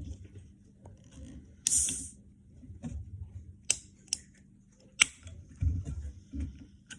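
Aluminium Monster Energy can cracked open by its ring-pull, giving a short hiss of escaping gas about two seconds in. Sharp metallic clicks and dull knocks of the cans being handled follow.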